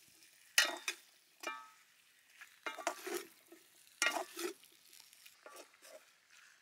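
A wooden spatula and a metal spoon scrape and clatter against a stainless steel wok while tossing a moist stir-fry of chitterlings and pickled mustard greens. It comes in separate strokes about once a second, and one stroke gives a short metallic ring.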